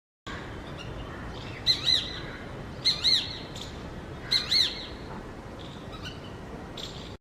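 A hawk calling: three short bursts, each of two high, arched notes, about a second and a quarter apart, over a steady background hiss.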